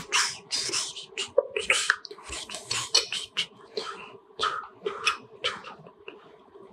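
A metal spoon scooping soft ice-cream pie out of a glass dish and dropping it into a drinking glass: a quick run of short, irregular scraping sounds that thin out near the end.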